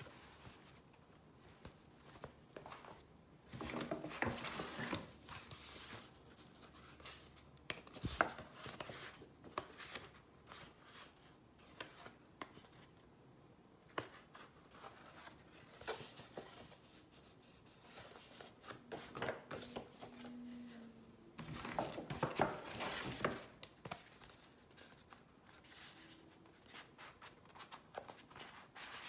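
Paper, card and fabric packaging being handled: rustling and rubbing in a few longer bursts, with scattered sharp taps of card boxes and pages between them.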